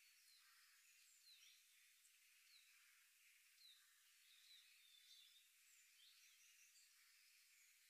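Near silence: a faint hiss with scattered, faint, short chirps of birds.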